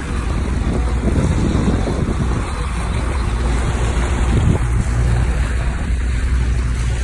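Outboard motor running steadily as the boat moves, with wind buffeting the microphone and the rush of the wake.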